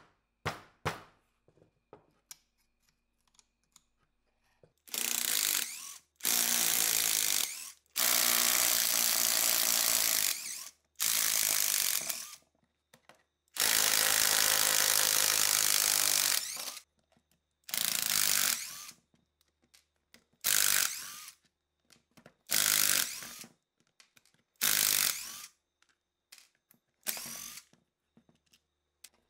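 A power drill run in about ten trigger bursts. The first several last one to three seconds, and the later ones are shorter, about a second each.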